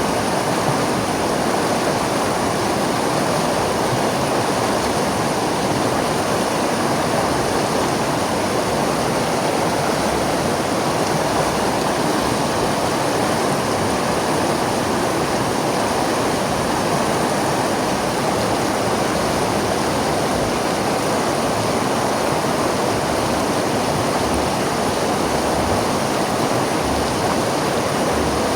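River water flowing and rushing over rocks, a steady, unbroken roar of moving water.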